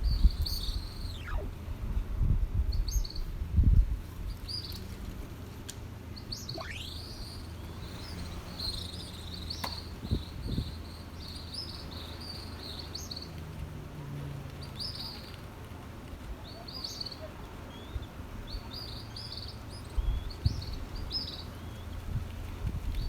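Many birds chirping in short, repeated high calls, with two long whistles that fall steeply in pitch, one near the start and one about seven seconds in. Low rumbling bursts come near the start and again near the end.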